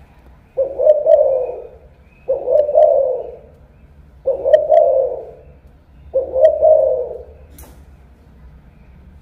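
Spotted dove cooing: four coo phrases about two seconds apart, each a quick note running straight into a longer coo.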